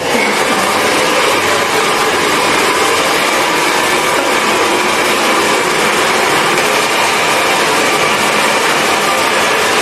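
Barber's hair dryer blowing steadily, a loud even rush of air with a faint motor hum. It switches on suddenly right at the start.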